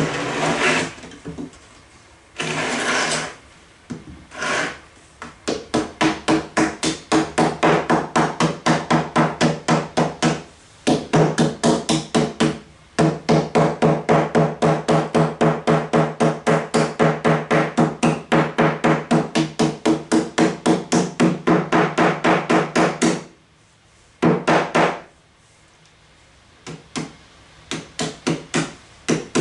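Hammer tapping aluminum sheeting down over the edges of a wooden hive lid: long runs of quick, ringing metal strikes, about three a second, broken by a few short pauses.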